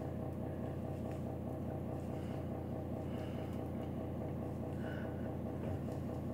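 A steady low machine hum, unchanging throughout.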